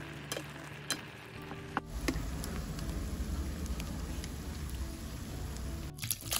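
Oil sizzling steadily as small dried fish fry in a pan. Just before it, for the first two seconds or so, there are scattered clicks of a wooden spatula stirring leafy greens in the pan. Near the end, soup is poured into a bowl.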